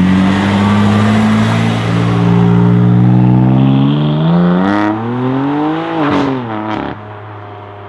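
BMW M4 F82's twin-turbo straight-six through an Akrapovic titanium exhaust, running loud and steady, then accelerating with the note rising for about two seconds before it drops sharply about six seconds in. A few sharp exhaust cracks sound around the peak, and then the engine note is much quieter.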